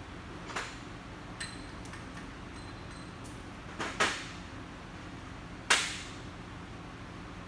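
A few sharp knocks, the two loudest about four and six seconds in, over a steady background hum; one knock leaves a faint ringing.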